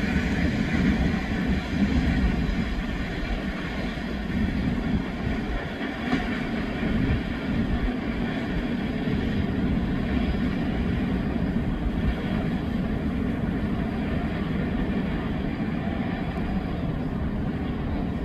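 Empty steel coal hopper wagons of a freight train rolling past on the rails, a steady rumble of wheels on track.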